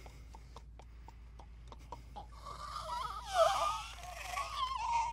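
Zombie snarl in a film: a run of sharp, irregular clicks, then from about halfway a loud, rasping snarl whose pitch wavers, loudest just past the middle. A steady low hum lies under it throughout.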